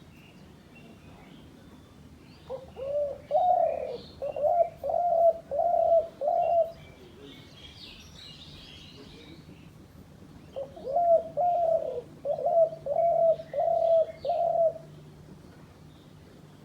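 A dove cooing: two phrases of several evenly repeated coos, a few seconds apart. Faint chirps of other birds are heard in the background.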